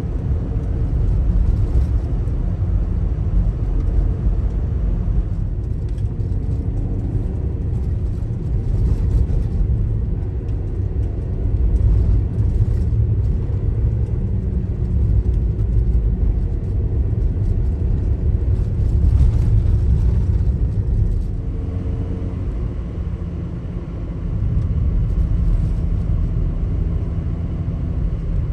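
Daihatsu Taft kei SUV driving on a snowy road: a steady low rumble of engine and tyres, easing slightly a little after twenty seconds in before picking up again.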